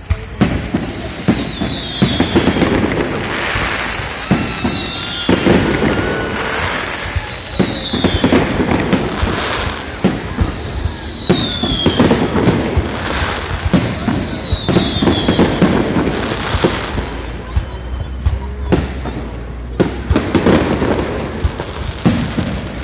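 Fireworks salute going off continuously: many sharp bangs and crackles with rumbling booms, and a falling whistle about every three seconds, five in all.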